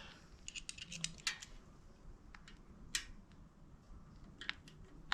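Faint, scattered light metallic clicks of an Allen key being fitted to and worked on the bolts of a motorcycle's oil filter cover, the sharpest about three seconds in.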